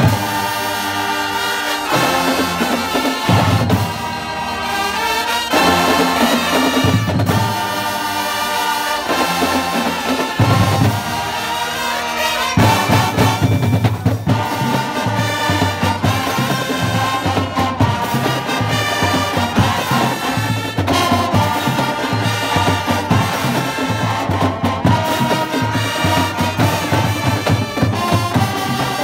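Marching band playing: trumpets and sousaphones in loud brass chords over snare and bass drums. For the first twelve seconds or so the band plays in short punched phrases with gaps, then it plays straight on with a regular drum beat.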